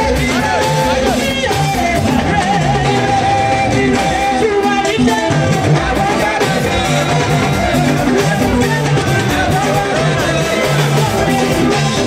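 Live gospel praise music: a woman sings lead into a microphone over a live band with electric guitars, bass and drums keeping a steady beat.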